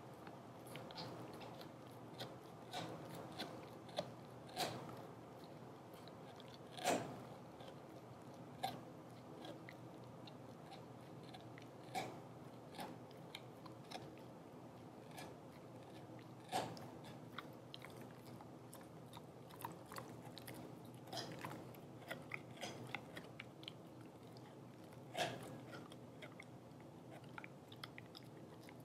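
A dog chewing a rawhide strip: irregular gnawing clicks and wet crunches, with several louder crunches, the loudest about seven seconds in.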